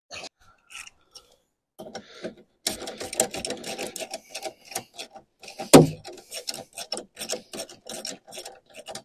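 Ratchet wrench with a 15 mm socket clicking rapidly while undoing a wiper arm nut. A few scattered clicks come first, and one sharp knock sounds about six seconds in.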